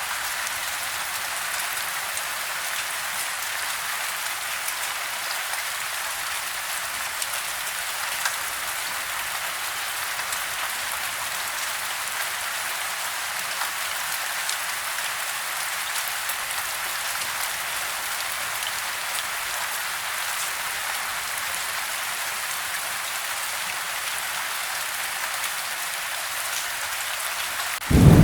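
Steady soft rain falling on a house, heard from indoors: an even hiss with scattered ticks of drops. Right at the end, a loud, deep thunder rumble breaks in.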